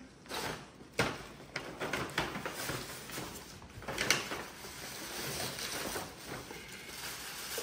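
Paper gift bag and tissue paper rustling and crinkling as hands dig into the bag and pull out a present, with sharper crackles about a second in and again near the middle.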